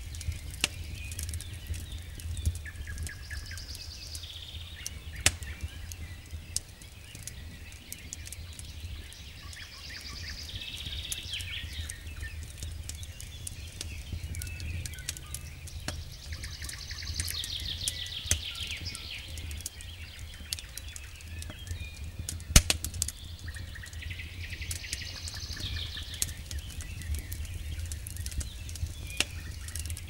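Wood campfire crackling with scattered sharp pops, the loudest about two-thirds of the way through, over a steady low rumble. Birds sing in short trilling phrases every few seconds.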